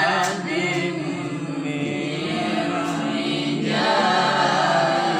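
Melodic Quran recitation (tilawah): a reciter's voice draws out long ornamented notes. One phrase ends and a new one begins about three and a half seconds in.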